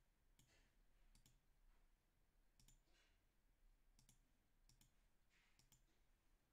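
Faint computer mouse clicks, each a quick press-and-release pair, about six spread through an otherwise near-silent room.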